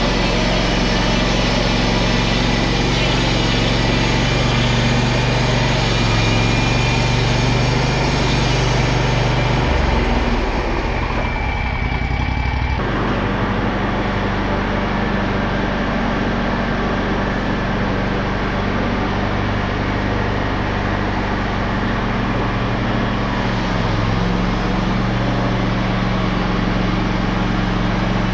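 Sawmill engine running steadily at a constant pitch, its note shifting briefly under load about ten to thirteen seconds in.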